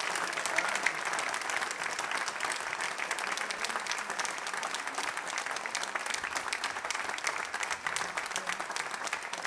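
Audience applauding: many hands clapping at once in a dense, steady stream.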